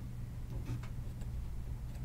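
Small curved scissors snipping through puffy foam in an embroidery hoop: a few faint, short snips over a steady low hum.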